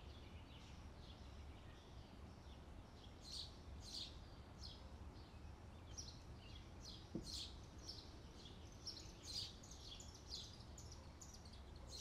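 Faint birdsong: many short, high chirps from small birds, coming irregularly throughout, over a low steady rumble.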